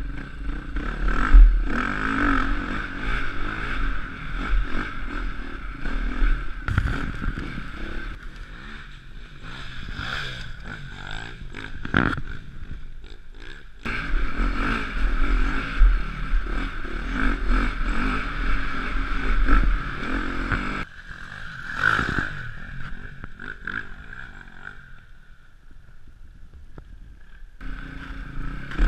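KTM dirt bike engine ridden hard, its note rising and falling with the throttle, with wind buffeting on the helmet microphone and an occasional knock from bumps. It goes quieter for a few seconds near the end.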